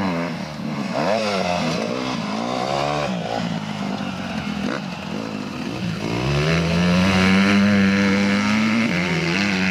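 Motocross bike engines revving up and down as the riders race over the dirt track. About six seconds in, one engine climbs in pitch and holds at high revs for around three seconds.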